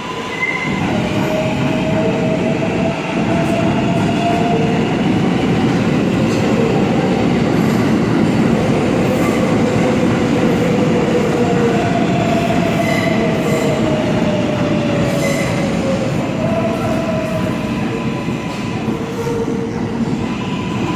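An R188 subway train on the 7 line pulling into the station: a loud, steady rumble of wheels on rail with several high tones that slide slowly up and down in pitch.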